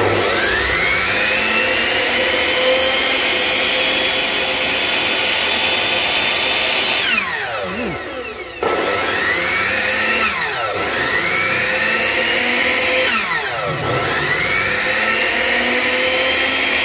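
Large Ryobi 100 V saw with a 380 mm blade switched on and off about four times. Each time the motor whines up to speed and then winds down and stops within a second or so under its brake. The seller finds the brake still working, with only slight sparking at the motor.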